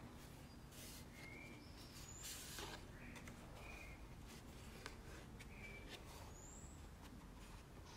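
Faint rustling and sliding of stiff paper pages of a handmade book being turned by hand, a few soft swishes over quiet room tone, with a few brief faint high chirps.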